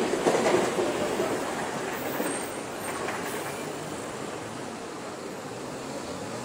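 Street traffic noise: cars, a motorcycle and a city bus driving past, an unpitched rumble that is loudest in the first second and then settles lower.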